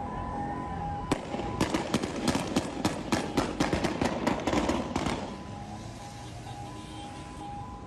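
Gunfire: a rapid, uneven string of about twenty shots starting about a second in and stopping about five seconds in, from soldiers firing on a street protest.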